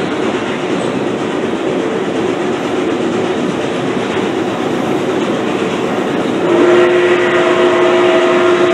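Steady running noise of a passenger train rolling along the track at speed. About six and a half seconds in, a locomotive whistle starts one long chord of several notes that is still sounding at the end: the steam whistle of Nickel Plate Road 765, a 2-8-4 Berkshire steam locomotive.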